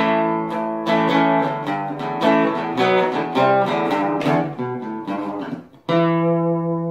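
Outro music: an acoustic guitar strumming chords, then a final chord struck just before six seconds in that rings on and slowly fades.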